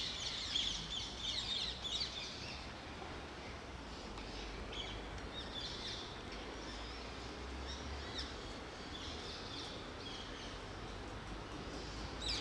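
Small birds chirping in quick, high bursts, busiest in the first two seconds and returning a few times after, over steady outdoor background noise.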